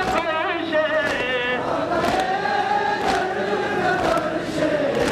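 A crowd of men chanting a mourning lament together, taking over about a second and a half in from a lone male voice with a wavering melody. Sharp slaps of chest-beating (matam) keep time about once a second.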